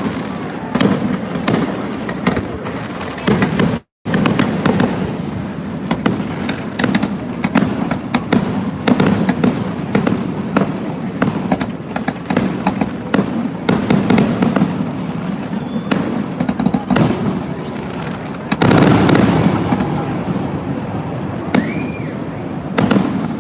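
A fireworks display: a rapid, continuous string of sharp bangs and crackles from aerial shells over a steady low rumble. The sound cuts out for an instant about four seconds in.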